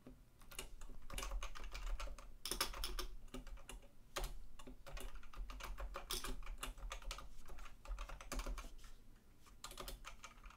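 Typing on a computer keyboard: quick runs of key clicks in several bursts with short pauses between them.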